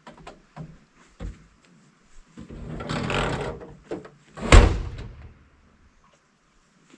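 A door slammed shut once, hard, about four and a half seconds in, after a second or so of scraping, rushing noise as it swings. A few light knocks come before it.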